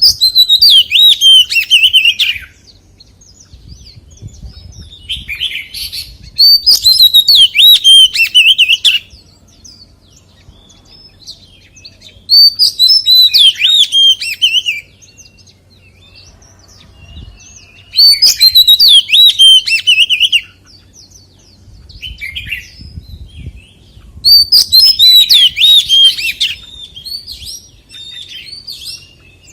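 Oriental magpie-robin singing: loud phrases of varied whistles and warbles, each two to three seconds long, repeated five times about every six seconds with short quiet gaps between.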